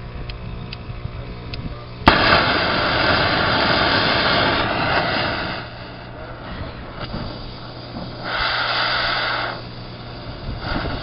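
Pressurised gas hissing loudly, starting abruptly with a sharp click about two seconds in, lasting a few seconds, then stopping and coming back twice in shorter spells, over a steady low hum.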